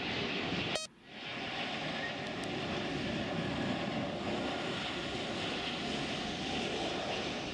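Boeing 777's jet engines on final approach, a steady rushing drone. The sound drops out briefly with a click about a second in.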